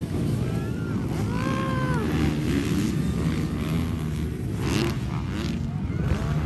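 A pack of motocross dirt bikes racing together, their engines running and revving, with spectators shouting over them.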